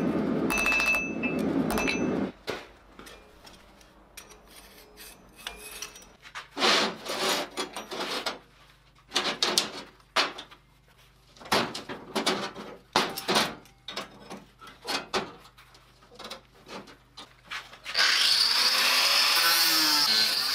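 A hammer striking red-hot steel on an anvil, with a ringing tone, for the first two seconds. Then scattered clinks and clatters of steel parts and locking pliers being handled on a steel workbench. About 18 s in, an angle grinder starts grinding steel, loud and steady.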